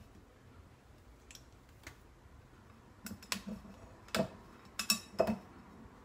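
Light clicks and knocks of a glass jar being handled on a countertop while a cloth cover is fitted over its mouth, scattered and faint at first, then louder and bunched together in the second half.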